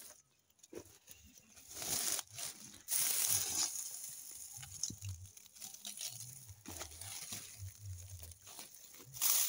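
Dry straw mulch of grass and maize stalks and woven plastic sacks rustling and crinkling as they are handled, louder for a couple of seconds near the start and again near the end.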